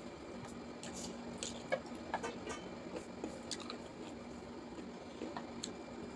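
Close mouth and hand eating sounds: wet, sticky squishing and chewing of finger-millet dhido and chicken curry eaten by hand, with scattered soft smacks and clicks.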